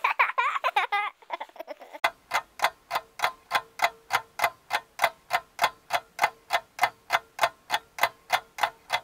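Giggling laughter for about two seconds, then a ticking-clock sound effect, a little under four even ticks a second, counting down while a joke's answer is held back.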